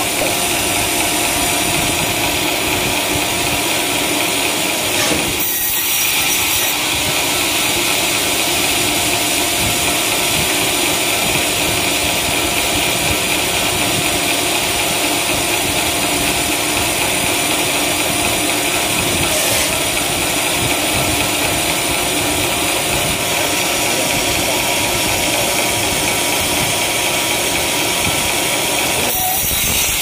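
Large vertical band saw of a sawmill running steadily, an even, continuous machine noise with no pauses.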